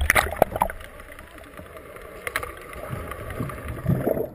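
Water splashing and churning, with a few sharp knocks in the first second, then a quieter rushing that swells again and cuts off suddenly near the end.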